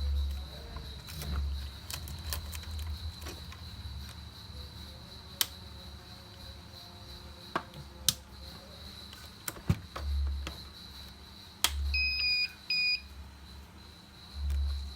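ZCUT-9 automatic tape dispenser being operated: scattered sharp clicks and a few short low hums, with three quick electronic beeps about twelve seconds in, over a faint steady high whine.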